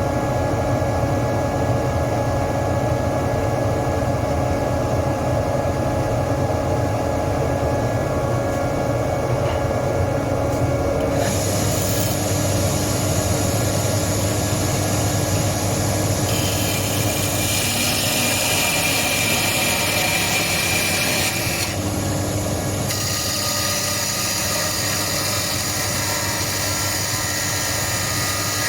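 Wood lathe motor running with a steady hum, and a turning tool cutting a spinning wooden bench leg: the hiss of the cut starts about eleven seconds in, grows louder in two long passes, and breaks off briefly between them.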